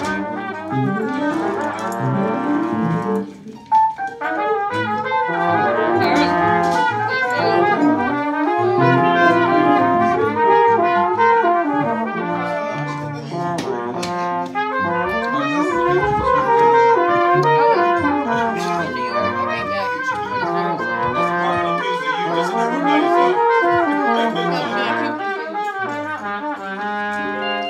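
Jazz ensemble music led by brass, with trumpet and trombone lines over the full band. The band briefly drops out about three and a half seconds in, then comes back in.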